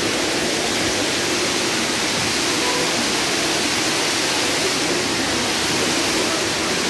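Small waterfall pouring down a rock wall into a pool: a steady, even rush of falling water.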